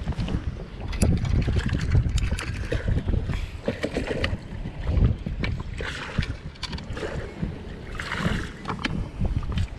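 Gusty wind buffeting the microphone, with scattered sharp knocks and clicks.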